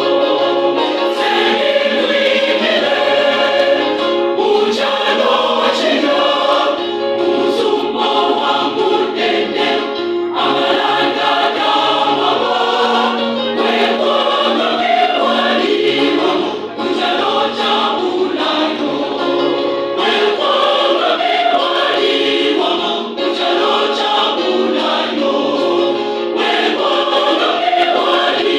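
Church choir singing, many voices together without a break.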